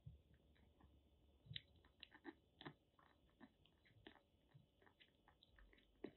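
A kitten eating soft wet cat food from a bowl: faint, irregular chewing and smacking clicks, several a second, with a few louder ones.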